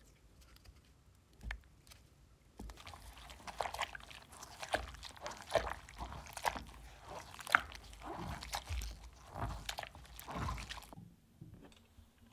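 Old fabric pieces from the vacuum being squeezed and scrubbed by gloved hands in a tub of soapy water: irregular wet squishing and sloshing. It starts about two and a half seconds in and stops about a second before the end.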